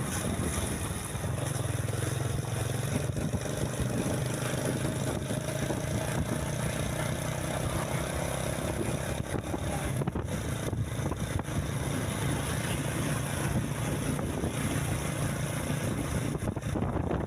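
A bus engine running with a steady low drone that eases off near the end.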